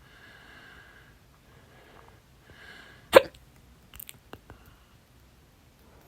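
One sharp, loud human hiccup about three seconds in, part of a long bout of stubborn hiccups, with a few small clicks just after it.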